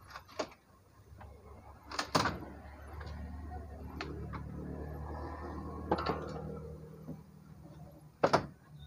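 Wooden shipping crate being pried apart with a claw hammer: about six sharp knocks and cracks of planks, two close together near the start, a pair about two seconds in, one near six seconds and a loud one near the end, with a steady low hum in the middle.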